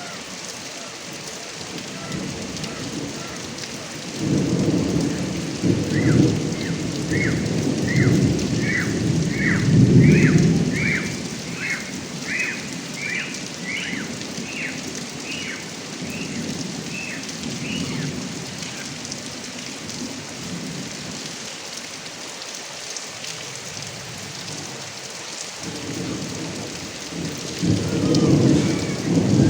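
Heavy rain pouring onto a roof and its gutter spout, a steady hiss, with rolling thunder that rumbles from about four seconds in, peaking around ten seconds, and again near the end. A series of short chirps, about one a second, sounds through the rain during the first thunder.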